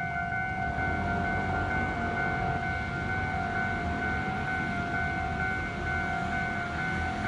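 Level-crossing warning alarm sounding continuously: a steady electronic tone at several fixed pitches, signalling that a train is approaching, over a low rumble.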